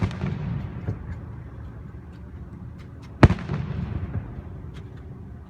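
Fireworks shells bursting overhead: two loud booms about three seconds apart, each rumbling away in an echo, with a few faint pops between them.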